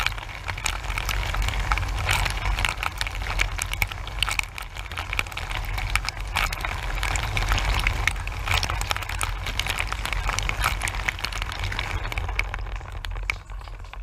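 Dishwasher mid-cycle, heard from inside the tub: the circulation pump's low hum under a dense crackle of water jets from the spray arm splashing against the racks and walls. Near the end the spraying lets up while the hum continues.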